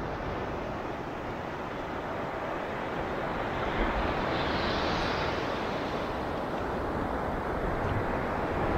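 Ocean surf washing on a beach: a steady rush of waves that swells as a wave breaks about four to five seconds in.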